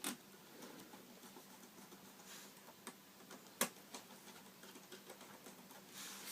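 Faint clicks and light scraping as the iMac's memory access panel is worked back into place, with one sharp click about halfway through and a soft scrape near the end.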